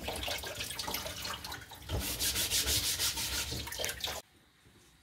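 Kitchen tap running into a metal bowl in a stainless sink while hands rub and wash something under the stream. The water shuts off suddenly about four seconds in.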